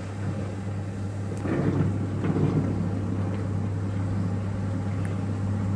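Portable washing machine's electric motor switching on and running with a steady hum, while the wash drum churns water and clothes with an uneven sloshing.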